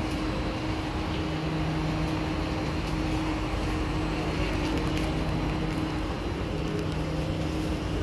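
Steady hum of an SMRT C151B train standing at a station platform: a constant low drone under an even rushing noise of air and equipment.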